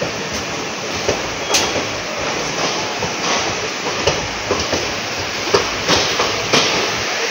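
Inside a sleeper-class coach of an Indian Railways express train on the move: a steady running noise with irregular knocks and rattles.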